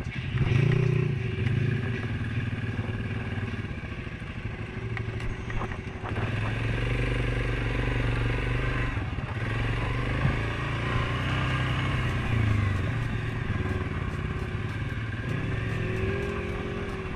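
Suzuki KingQuad 750 ATV's single-cylinder engine running under way along a dirt trail. The engine note climbs about half a second in, holds fairly steady through the middle, and bends up and down near the end as the throttle changes. A few light knocks and rattles sound over the bumps.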